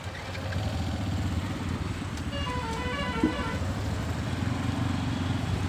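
Motor vehicle engine running nearby with a low rapid throb. About halfway through, a short run of high musical notes sounds briefly, followed by a single sharp click.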